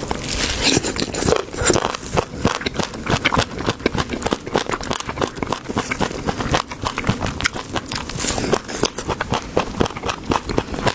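Close-miked eating: bites and crunchy chewing, a dense, irregular run of small crisp clicks and crunches.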